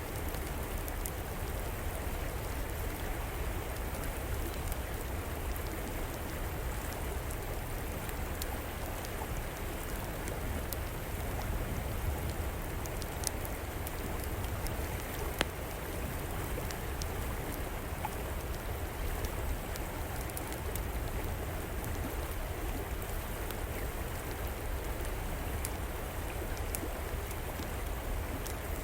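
Steady rushing flow of a river, with a wood fire crackling over it in scattered sharp pops, one a little louder about halfway through.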